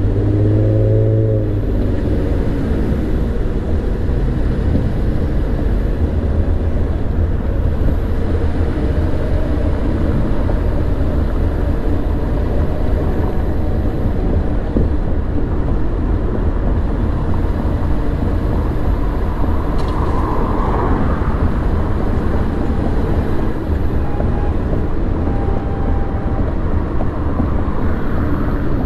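Car driving along a city street: a steady low rumble of engine and tyre noise, with a brief engine note rising in pitch in the first second or so.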